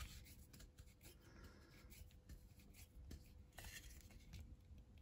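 Near silence with faint clicks and rubbing from a G-clamp and wooden blocks being handled and tightened to press a small ball bearing back into a brushless motor's end bell.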